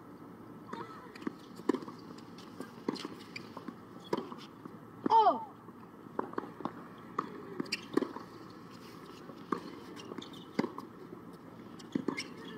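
Outdoor tennis court sounds: scattered sharp knocks of a tennis ball bouncing on the hard court and being struck by rackets, over a steady background hiss. One short, loud call about five seconds in bends up and then down in pitch.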